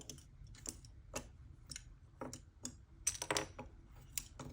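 Loose plastic Rubik's cube pieces clicking and clacking as they are picked up and set down one by one, in faint, irregular clicks with a quick cluster a bit past the middle.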